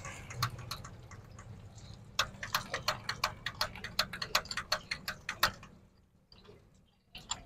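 Quick run of small metallic clicks, about four or five a second, from working the hand primer pump and bleed screw to bleed air out of a John Deere tractor's diesel fuel filters. The clicks are sparse at first, then come in a steady run for a few seconds before stopping.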